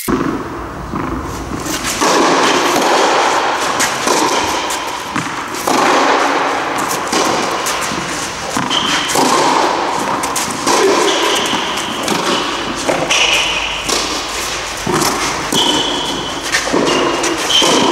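Tennis rally on a clay court: a series of thuds as the ball is struck by the rackets and bounces. Under them runs a steady noisy background.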